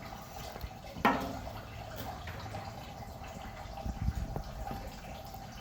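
Knife work on a fish being filleted: a sharp knock about a second in, then soft taps and scrapes around four seconds in.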